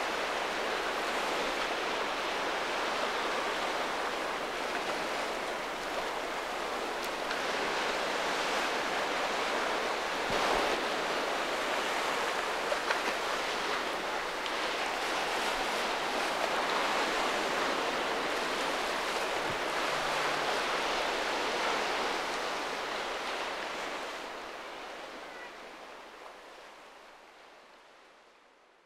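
Sea waves washing: a steady hiss that swells and ebbs every few seconds, fading out over the last few seconds.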